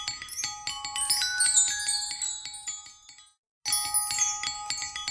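Music: a quick, bright, bell-like tune of struck high notes, like a glockenspiel. It breaks off about three and a half seconds in and then starts over from the same point.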